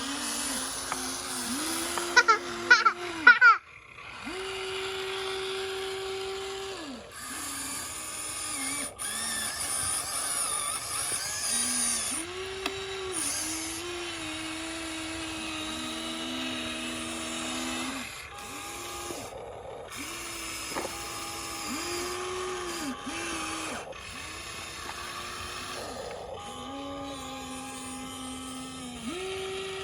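Small electric motors of a Huina radio-controlled model excavator whining in short stretches, the pitch rising, holding and dropping with each move of the arm, bucket or tracks. There are a few loud sharp clatters about two to three seconds in.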